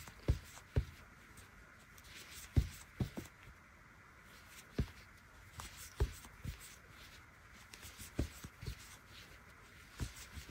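Crochet hook and yarn being worked by hand: faint rubbing of yarn and fingers, with about a dozen soft, irregular taps and knocks as the hook and work are handled.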